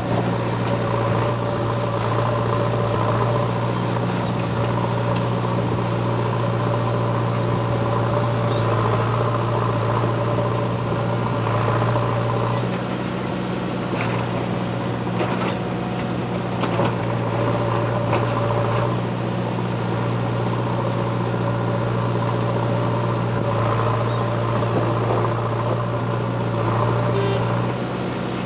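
JCB 3DX Xtra backhoe loader's diesel engine running steadily under load while the backhoe digs and loads stone and mud, with a few short clunks from time to time.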